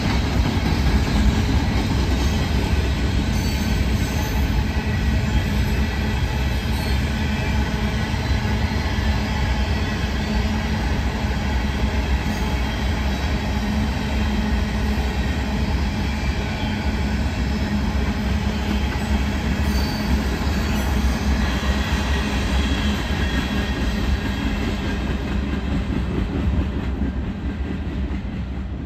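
Union Pacific ballast hopper cars of a freight train rolling past close by: a steady, loud rolling noise of steel wheels on the rails.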